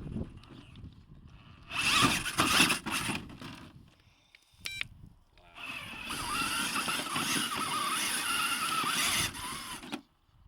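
Rlaarlo JK07PRO 1/7-scale RC trail truck driving in two runs: a short burst about two seconds in, then a longer run from about halfway until just before the end, with a motor-and-gear whine that wavers with the throttle.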